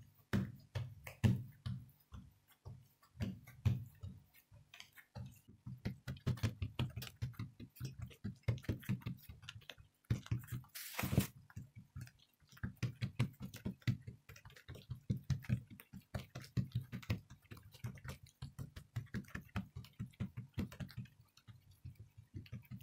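Fingertips pressing and patting oiled yeast dough flat on a greased plate: a rapid, irregular run of soft taps and light sticky smacks. About eleven seconds in there is a brief, louder rushing noise.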